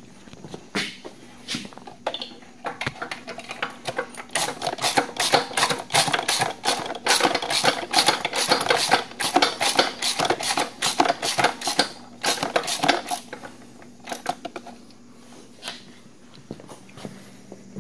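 Ratchet wrench clicking rapidly in quick runs while snugging up a bolt, busiest from about four seconds in to about thirteen seconds, with scattered single clicks and knocks before and after.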